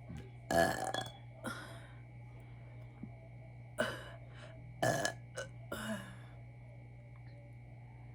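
A woman belching repeatedly: five or six short burps in the first six seconds, the first the loudest, brought up by drinking carbonated soda.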